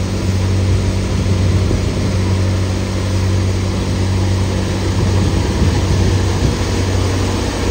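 A tractor-driven Avtar multicrop thresher with a 42-inch drum running under load as mustard stalks are fed into it: a steady low hum under an even whirring noise.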